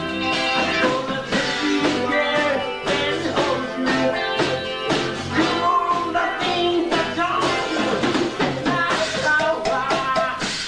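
Live rock band playing: guitars, bass and drums with a lead vocal, a steady beat of drum hits throughout.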